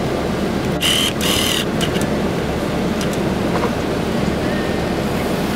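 Hurricane wind rushing steadily, with a brief louder hiss about a second in.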